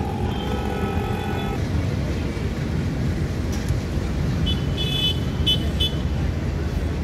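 Traffic noise from idling vehicles waiting at a closed railway level crossing, with vehicle horns honking: one horn held for about a second and a half at the start, then a few short, high beeps of a horn about five seconds in.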